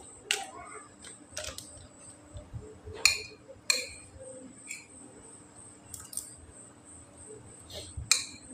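Spoon and fork clinking and scraping against a plate of rice while eating, a few sharp clinks scattered a second or two apart.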